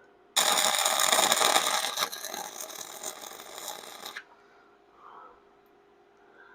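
Electric arc welder laying a bead of about four seconds on a car frame, a dense crackle that stops suddenly. The welder is set too hot for the metal and burns a small hole through it.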